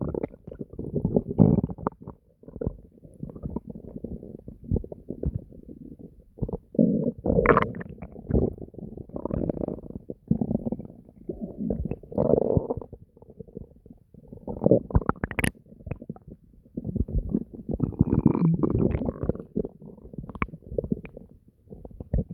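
Human stomach gurgling and growling (borborygmi) in a near-constant run of irregular, low gurgles, with a couple of brief higher squeaks along the way.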